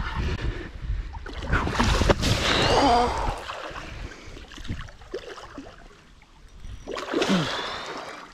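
A hooked wels catfish thrashing at the surface, with water splashing and churning in heavy bursts through the first three seconds and again near the end.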